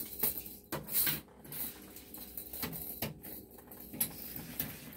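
Handling noise as a steel tape measure is pulled out and laid along upholstered bed cushions: rustling with a handful of sharp clicks and ticks.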